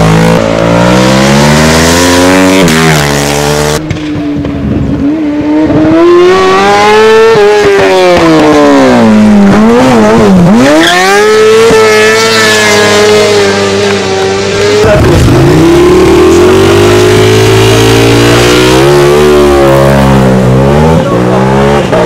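Racing engines at full throttle, pitch rising and falling through gearshifts as the machines pass. First a Ducati superbike; after a break about four seconds in, a racing sidecar outfit's engine revs up and down; a third racing engine takes over after a second break about fifteen seconds in.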